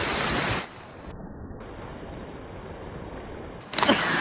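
Steady rush of wind and surf noise on a phone recording. About two-thirds of a second in it drops to a quieter, duller hiss, and near the end a sudden louder burst of sound begins.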